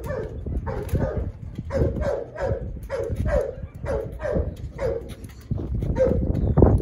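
Dog barking in a quick run of short, yelping barks, about two a second, pausing briefly before a last bark, with a sharp knock at the very end.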